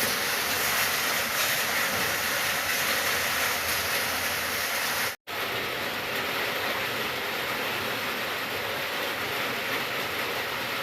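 Steady rain, an even hiss of falling drops. About five seconds in it cuts out for an instant and then resumes a little quieter.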